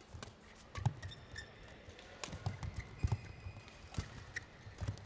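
Badminton rally on an indoor court: rackets crack against the shuttlecock about once a second, shoes squeak briefly on the court surface, and feet thud between shots.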